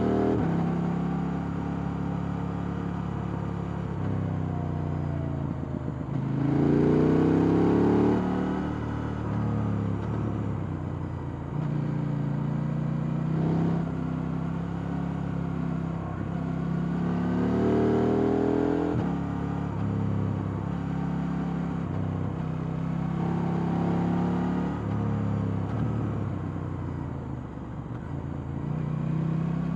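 KTM 890 Duke R's parallel-twin engine on its stock exhaust, pulling up through the revs several times and easing off between, with stretches of steadier running.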